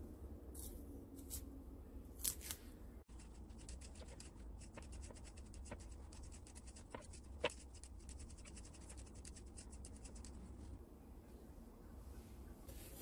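Knife and then a vegetable peeler scraping the tough fibrous skin off a celtuce stem. The peeler goes in many quick, evenly repeated strokes with a couple of sharper clicks.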